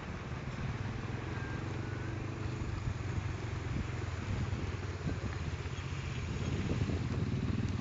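Vehicle engine idling steadily, with wind on the microphone that turns gusty near the end.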